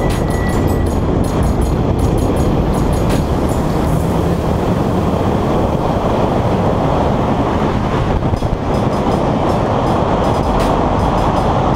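BMW M4 at track speed: a loud, steady rush of wind and road rumble over a hood-mounted camera's microphone, with the car running underneath and a few brief sharp ticks.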